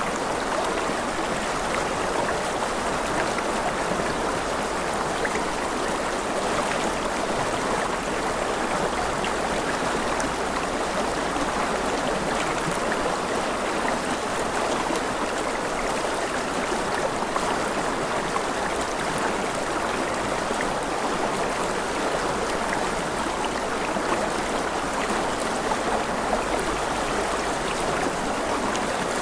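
Running water of a stream, a steady even rush with no breaks or changes.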